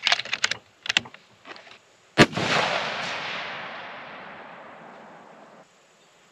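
A few quick clicks, then a single shot from a Mossberg Patriot bolt-action rifle in 6.5 Creedmoor, about two seconds in. The crack is followed by a long rolling echo that dies away over about three seconds.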